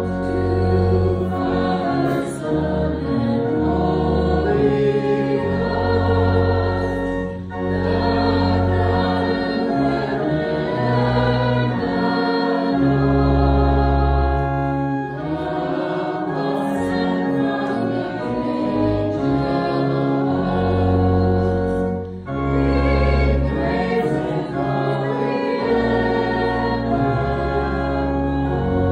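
A hymn sung by many voices to organ accompaniment, with held organ chords and deep bass notes under the singing. It pauses briefly between phrases about seven and twenty-two seconds in.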